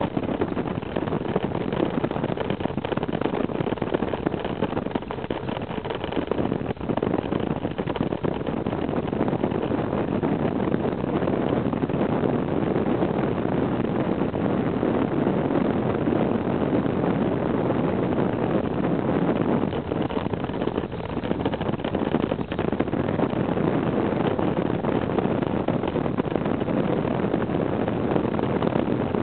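Motorcycle riding at cruising speed: the engine running steadily under heavy wind rush over the microphone.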